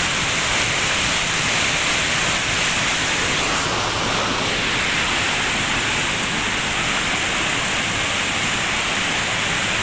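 River rapids rushing over rocks: a steady, unbroken noise of fast-flowing water.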